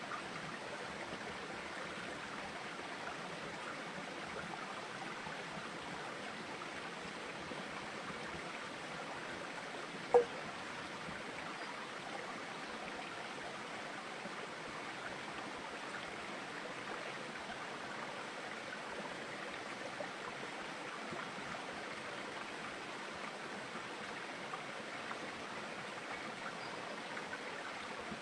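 Steady rush of flowing water, even and unbroken, with one sharp click about ten seconds in.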